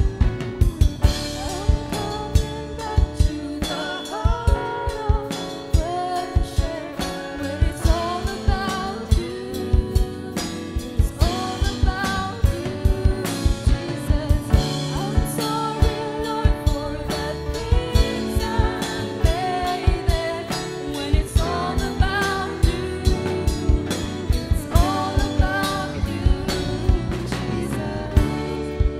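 Live worship-band music: a lead singer carries the melody over electric guitars, bass guitar and a drum kit keeping a steady beat.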